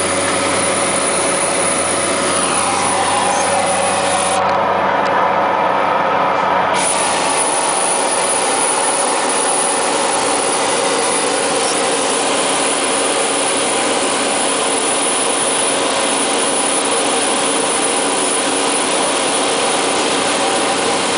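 Cessna 208B Caravan's single turboprop engine and propeller heard from inside the cabin in flight, a loud, steady drone with a tone that glides down in pitch a few seconds in.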